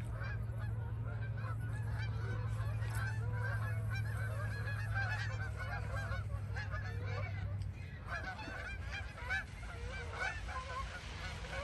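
A large flock of Canada geese honking, many calls overlapping continuously as the flock flies low over the lake. A steady low hum runs underneath and stops about two-thirds of the way through.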